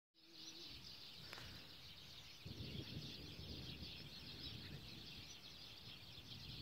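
Faint outdoor ambience: a steady high-pitched chorus of chirping, with low wind rumble on the microphone growing from about two and a half seconds in.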